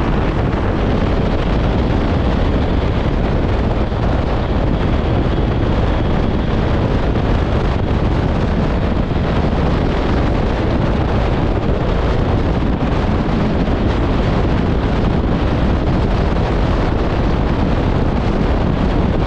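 Steady wind rush on the microphone of a moving motorcycle, with engine and road noise beneath it.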